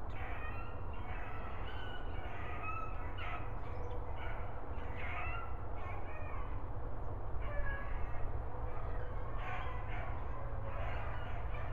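Hounds baying, with several calls repeating irregularly and overlapping, as dogs do when running a rabbit's trail. A steady low rumble lies underneath.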